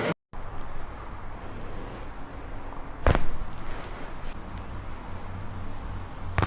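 Sharp crack about three seconds in, with a second, fainter one near the end, from a chiropractic spinal adjustment.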